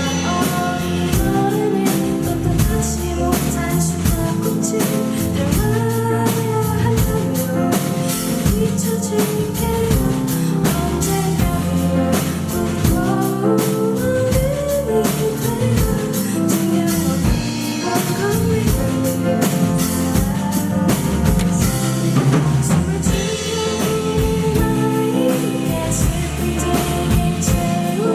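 Live band music: drums and guitar playing steadily under a sung melody.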